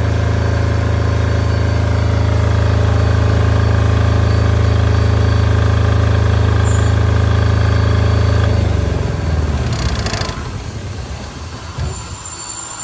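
Izuki SDG8500SE diesel generator in its enclosed silent-type canopy, running at a steady speed. Its running sound dies away about nine seconds in. A brief rushing noise follows about a second later.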